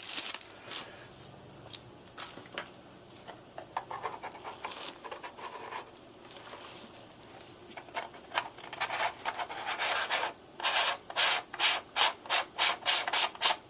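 Hands handling a camcorder and its add-on wide-angle lens: rubbing and scraping of plastic and metal parts, ending in a quick run of short rubbing strokes, about three a second, as the lens is worked onto the camera.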